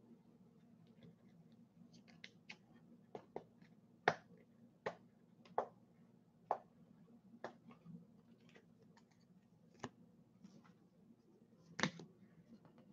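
Trading cards and their plastic sleeves and rigid holders being handled on a wooden table: a dozen or so sharp, irregular clicks and taps, the loudest about four seconds in and near the end, over a faint steady hum.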